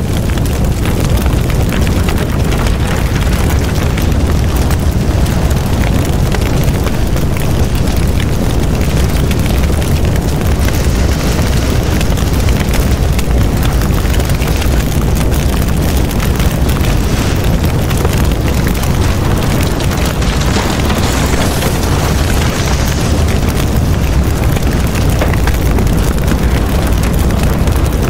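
Loud, steady rumbling noise with a hiss on top, unbroken and with no distinct events.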